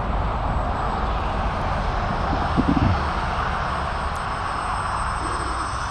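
Micro Draco RC model airplane flying, its motor and propeller making a steady whine, with low wind rumble on the microphone and a brief low sound about halfway through.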